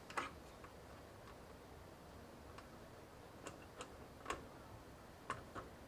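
Light, scattered clicks and taps, about a dozen at uneven spacing, from a cooling fan and radiator assembly being handled and set into place against a PC case.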